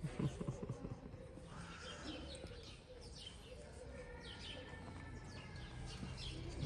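Small birds chirping over and over, many short high falling chirps, with a few low rustling thumps in the first second.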